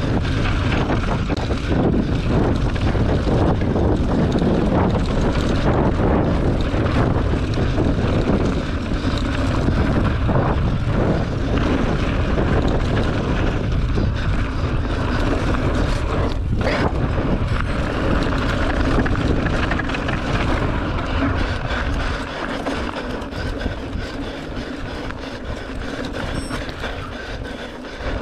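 Mountain bike rolling over dry dirt singletrack heard from a camera on the bike: steady wind rumble on the microphone with tyre crunch and the bike rattling over bumps. The rumble eases in the last several seconds.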